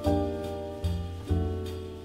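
Instrumental background music, with pitched notes and bass notes struck a few times.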